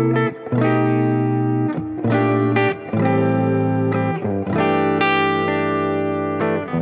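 Sterling CT50 Plus electric guitar playing sustained chords through effects, over a backing track. A new chord comes in about every second or so.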